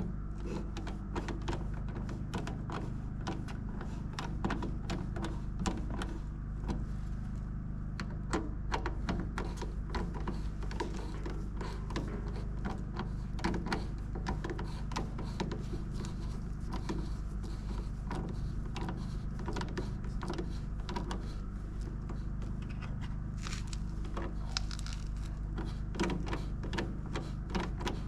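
Irregular small clicks and knocks, many a second, over a steady low hum.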